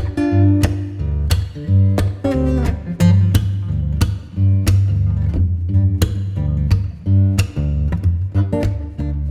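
Background music: a guitar-led track with a strong bass line and a steady beat.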